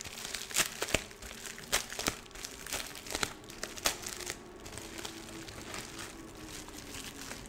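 The crinkling and rustling of a beauty-box mailer packet being opened and rummaged through, with irregular sharp crackles that thin out after about four seconds.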